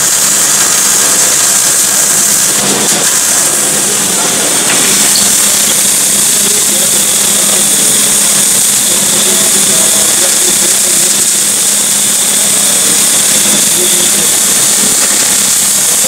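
Electric welding arc crackling and sizzling steadily as a weld is run on a steel plate, with a steady low hum underneath.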